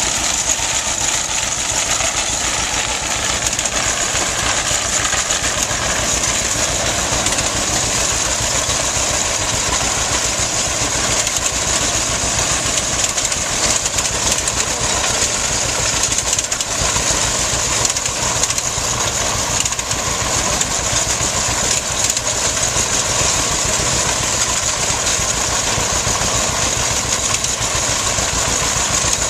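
Vintage John Deere tractor engine running steadily under load while it pulls a corn binder through standing corn, mixed with the clatter of the binder's chains and packers.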